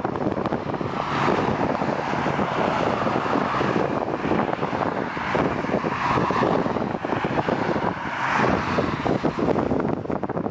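Jet engines of an Aer Lingus twin-jet airliner running as it rolls along the runway, a steady rushing noise that swells and eases, mixed with wind buffeting the microphone.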